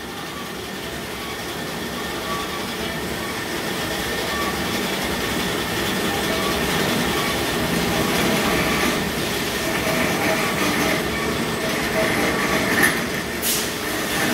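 Amada HA-400 automatic band saw running, a dense steady mechanical noise with faint steady tones that grows louder over the first several seconds and then holds. A sharp click comes a little before the end, followed by a short hiss.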